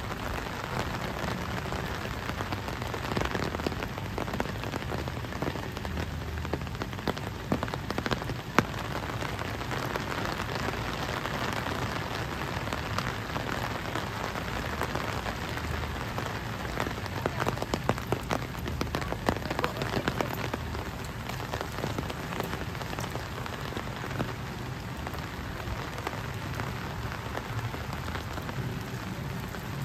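Steady rain falling, with many close individual drops ticking throughout and one sharper tick about eight and a half seconds in.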